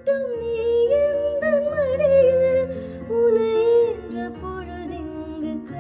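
Background music: a song with a sung melody that glides and wavers over held instrumental notes.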